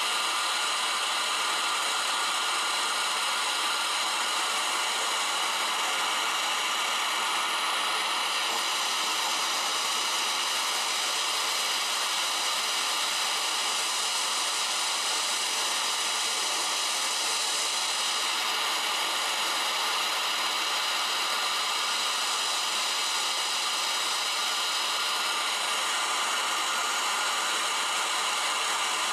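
Steady hiss of a handheld gas torch flame blowing into a ceramic melting dish, melting down recovered silver. The sound holds even throughout.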